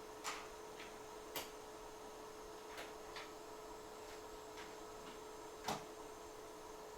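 Hot-air rework station blowing with a faint steady hum and hiss while the solder balls are reflowed under flux, with a few light clicks scattered through.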